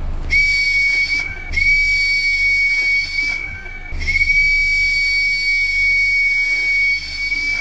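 A small green plastic whistle blown in three long, steady, high-pitched blasts, each longer than the last, really loud.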